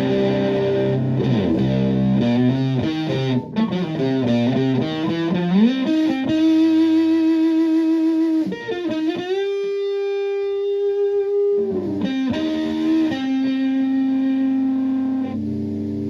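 Electric guitar played through a modified Violet Ram's Head Big Muff fuzz pedal with its second pair of clipping diodes switched out (no diodes). It plays sustained fuzzed chords and bent notes, then a long held note near the middle, then more chords.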